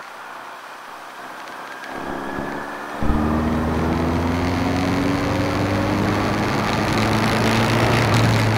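A vehicle engine comes in loud about three seconds in and keeps pulling, its pitch rising slowly as the vehicle accelerates, after a couple of seconds of low steady noise.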